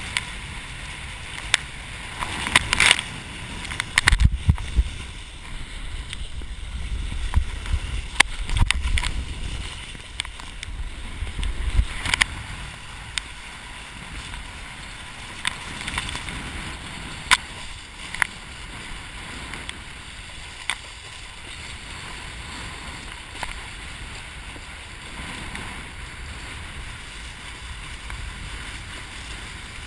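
Water rushing and sloshing past a kiteboard planing over choppy water, with wind on the microphone. Frequent sharp slaps and knocks from the chop come thickest in the first twelve seconds, then thin out.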